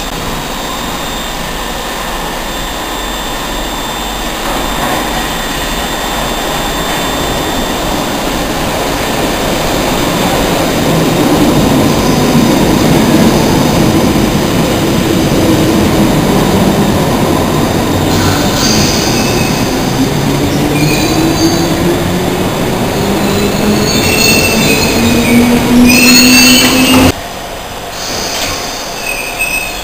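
London Underground District line train running through a subway station platform, its motor whine rising steadily in pitch as it picks up speed, with wheel squeal in the later part. The sound drops off abruptly a few seconds before the end, leaving a quieter train rumble.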